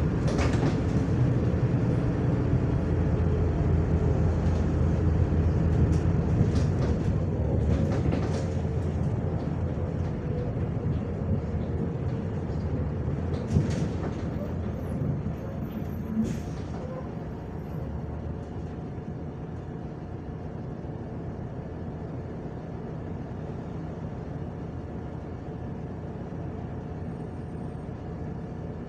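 Cabin noise inside a MAZ-105 articulated city bus: engine and road rumble while it drives, easing off as the bus slows, with two short knocks about halfway. Then a quieter, steady engine idle as the bus stands still.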